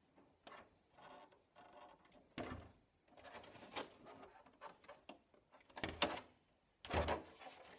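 Hard plastic clicks and knocks as the RC car's body shell and chassis parts are handled and shifted by hand, a string of separate knocks with two louder ones near the end.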